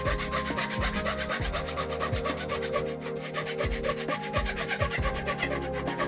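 Hand saw cutting a thin wooden strip clamped in a vise, a fast, even rasping of short strokes, with background music.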